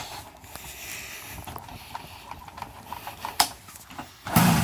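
1994 Tomos Target LX moped's two-stroke engine being turned over to start it after a carburetor main-jet cleaning, with uneven knocking and rumbling but not yet running. A louder rush of noise comes near the end.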